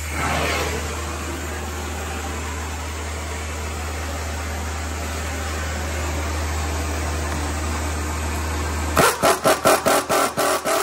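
Oxy-acetylene cutting torch flame hissing steadily with a low rumble while heating a seized nut. About nine seconds in it stops suddenly, and a quick run of sharp ratchet clicks follows, about four or five a second, as the nut is worked loose.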